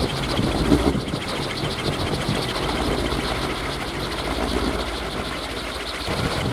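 Kolecer, a Sundanese wooden wind propeller on a pole, spinning in strong wind with a steady whirring drone and a rapid fluttering pulse from the blades.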